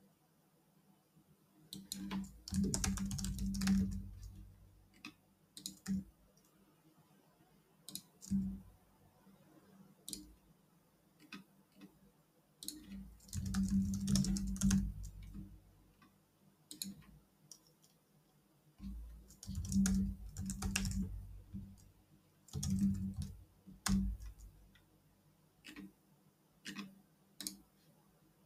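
Computer keyboard typing in four short bursts, with single clicks between them.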